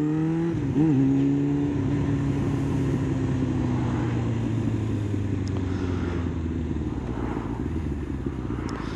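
Kawasaki ZX9R's inline-four engine from the rider's seat, over wind noise. Its revs rise at first, blip briefly about a second in, then settle and slowly fall as the bike rolls off the throttle.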